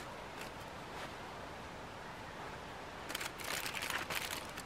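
Quiet steady background hiss, then from about three seconds in a quick run of crinkling and scraping as a utensil works at trout baked in aluminium foil.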